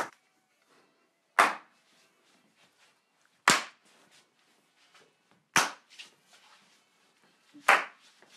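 Four sharp hand claps, evenly spaced about two seconds apart, played on the beat as a studio clap overdub take.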